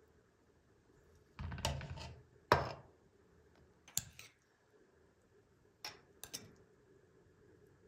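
Metal serving spatula scraping cooked rice into a ceramic bowl, with one sharp knock against the bowl about two and a half seconds in. Then a metal spoon clicks against the bowl a few times while stirring the rice.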